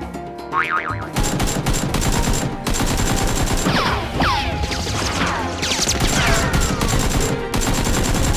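Dubbed-in automatic gunfire: a long run of rapid shots over background music, starting about a second in. Several falling whistles are heard in the middle.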